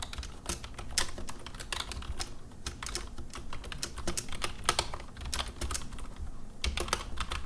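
IBM KB-8923 rubber-dome keyboard being typed on as softly as possible: an irregular run of key clicks, several a second.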